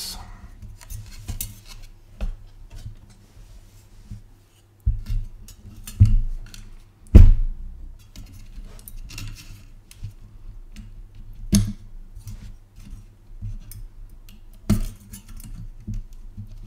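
Small clicks, taps and clatter of metal and plastic parts as a graphics card's heatsink is unplugged and worked off the board, with a sharper knock about seven seconds in. A steady low electrical hum runs underneath.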